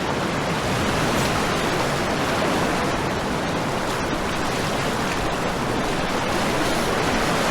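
Whitewater rapids rushing steadily around the canoe.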